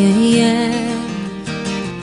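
Live acoustic music: an acoustic guitar strumming the song's intro, with a long held note from the start that fades near the end.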